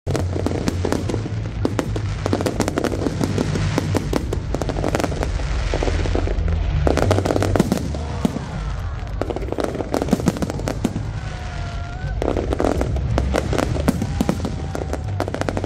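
Aerial fireworks display: shells bursting overhead in rapid, near-continuous bangs and crackles over a steady low rumble.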